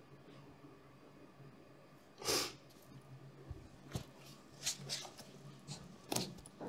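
A sharp, loud breath about two seconds in, close to a clip-on microphone, then soft knocks and rustles as hands and feet shift on an exercise mat during a stretch.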